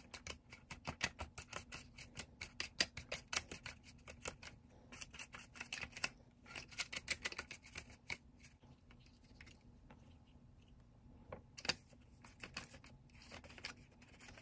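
Thin plastic tray of a DIY candy kit clicking and crackling in quick, irregular ticks as fingers press and knead the dough inside it, thinning out to a few louder clicks later on.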